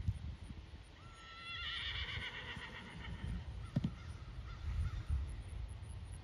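A horse whinnies once, a long call of about two seconds starting about a second in and fading out.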